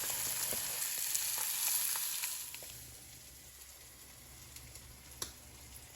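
Eggs and asparagus frying in a pan: a steady sizzle with small crackles that drops off sharply about halfway through. A single sharp click near the end.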